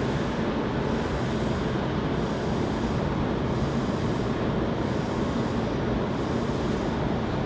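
Steady noise inside a Hankyu 7300 series electric train car, with no single event standing out.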